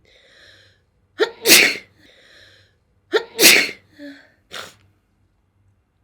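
A person sneezing twice, each loud sneeze preceded by a breathy intake of air. Two short, quieter breathy sounds follow.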